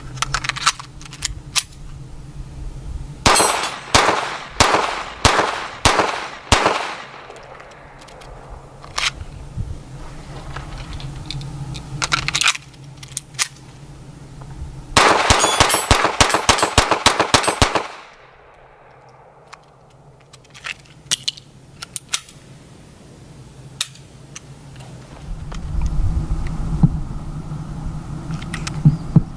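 Stoeger Luger .22LR blowback pistol firing a string of sharp shots, about two a second. Later a very fast, dense run of gunfire lasts about three seconds, and single shots are scattered throughout.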